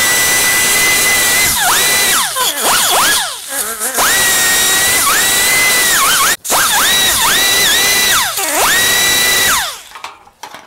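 Handheld pneumatic grinding tool running at a high, steady whine, its pitch dropping sharply each time it is pressed against the edge of a small sheet-steel panel to trim it, recovering between passes. It bogs several times and winds down near the end.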